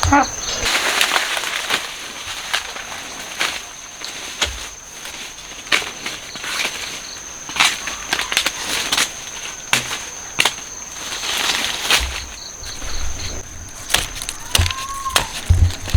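Hand work among sugar cane: dry leaves rustling and scattered sharp snaps and cracks of stalks being cut, with a steady high insect whine behind.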